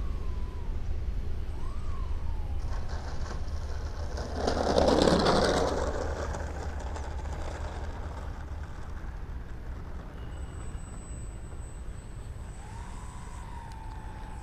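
Electric motor and propeller of an RC model N250 airliner in flight, a faint whine that rises and falls in pitch near the start and again near the end, under steady wind rumble on the microphone. A louder rushing swell comes about four to six seconds in.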